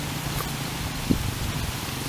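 Steady rushing background noise with a faint low hum beneath it, and one short soft thump about a second in.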